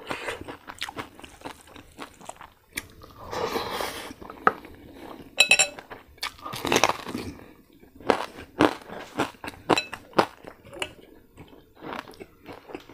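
Close-miked crunching and chewing of crispy fried pork: irregular sharp crunches of the crackling skin between softer wet mouth noises.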